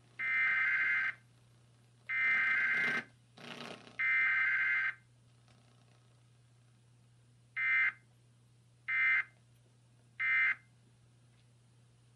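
Emergency Alert System SAME data tones for a Required Weekly Test: three buzzy digital header bursts of about a second each, then three short end-of-message bursts. There is no attention tone and no spoken message.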